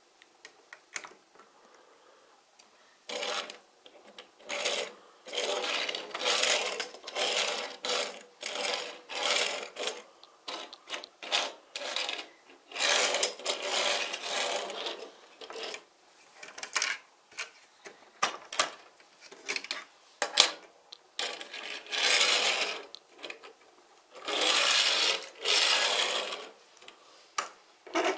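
Small plastic building-block toy cars pushed by hand along a table top, their plastic wheels rolling in a run of strokes one to two seconds long, with a few light clicks between.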